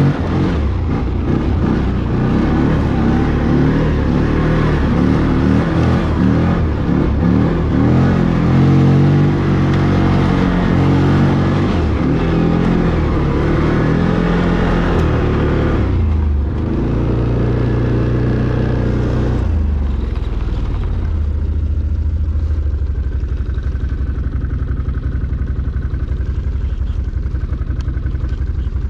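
ATV engine revving up and down repeatedly as it is ridden off road. About sixteen seconds in the revs drop, and from about twenty seconds in the engine settles to a steady idle.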